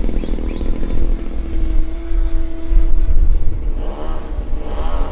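OMP Hobby Bighorn RC aerobatic plane's motor and propeller in flight, holding a steady tone, then swinging up and down in pitch near the end as the plane manoeuvres. Wind buffets the microphone throughout.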